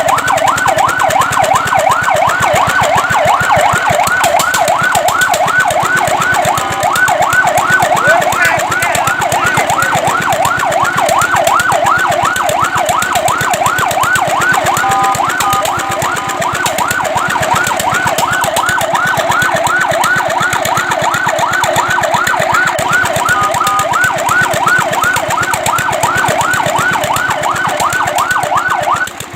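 Fire truck siren in a fast yelp, its pitch sweeping up and down about three times a second, three times briefly broken by a short steady two-note blast. It cuts off just before the end.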